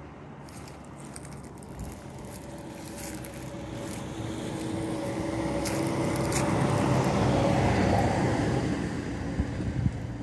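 A motor vehicle driving past: engine hum and tyre noise grow steadily louder to a peak about eight seconds in, then begin to fade.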